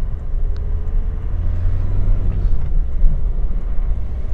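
Car on the move with a steady low engine and road rumble, the engine note rising as it accelerates from about one second in.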